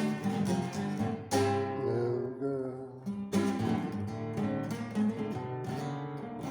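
Acoustic guitar being played, strummed chords and plucked notes, with sharp strokes about a second and about three seconds in.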